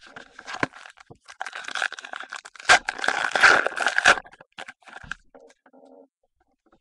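Trading cards being handled and slid against one another, a scratchy rustle with small clicks that is heaviest in the middle and dies away near the end.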